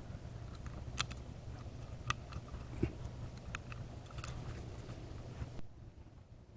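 Faint, scattered small clicks and taps from small distributor parts being handled while the distributor is converted to electronic ignition, over a low steady hum.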